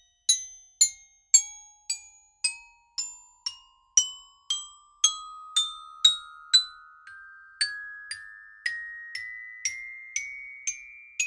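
Xylophone played one note at a time, about two notes a second, climbing up the scale in small steps, each note ringing briefly.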